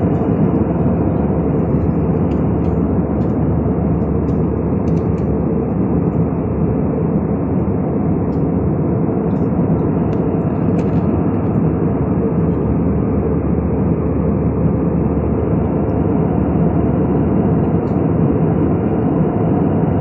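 Steady, even roar of a jet airliner's engines and rushing air, heard inside the passenger cabin during the approach.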